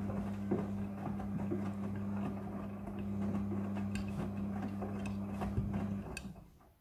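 Midea front-loading washing machine running a quick wash: a steady motor hum with scattered clicks and knocks from the tumbling load, which stops about six seconds in as the drum comes to rest.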